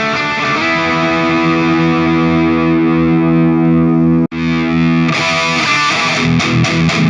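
Electric guitar with a distorted tone played through an M-Vave Tank Mini amp-modelling pedal: held, ringing chords, a split-second dropout just after four seconds in, then busier picked notes.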